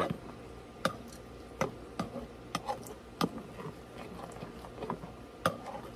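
A spoon clinking against a cup as instant oatmeal is stirred: a string of sharp clicks at uneven intervals, about ten in all.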